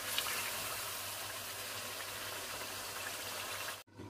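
Chicken pieces in a thick tomato-and-yogurt masala sizzling and bubbling in a frying pan over a gas flame, a steady hiss. It cuts off abruptly near the end.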